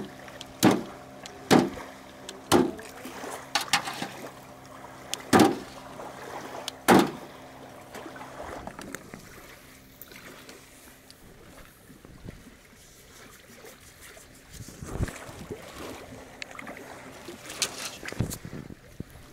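Knife blows chopping into an animal carcass on a wooden plank, loud and about one a second for the first seven seconds, then a few quieter knocks and handling sounds. A low steady hum runs underneath.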